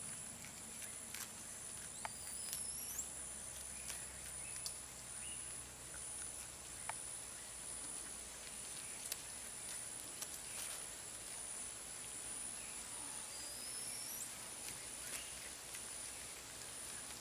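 Tropical forest ambience: a steady high-pitched drone of insects, with scattered rustles and snaps of leafy stems as Zanzibar red colobus monkeys pull at foliage to feed. Two short rising calls sound, about two and a half seconds in and again near the end.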